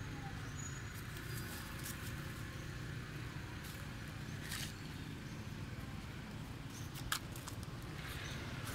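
Steady low outdoor rumble with a few short, faint clicks and rustles scattered through it; no animal calls stand out.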